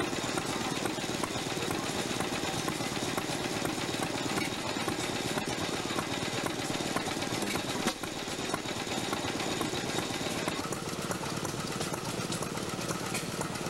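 Antique stationary gas engine, a 1910 Root & Vandervoort 6 hp, running with a steady, rapid mechanical clatter. There is a brief dip about eight seconds in.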